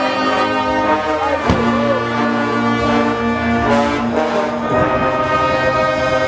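Guggenmusik brass band playing loudly: trombones, trumpets and tuba hold long brass chords, with drum-kit and bass-drum hits marking the changes between them.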